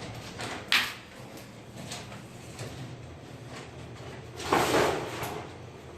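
Handling knocks and scrapes: a sharp click under a second in, then a louder scrape lasting under a second near the end, over a faint low hum.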